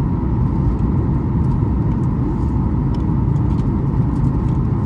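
Steady low rumble of airliner cabin noise inside a Boeing 737 MAX 8: its CFM LEAP-1B engines and the airflow over the fuselage, with a faint steady hum above.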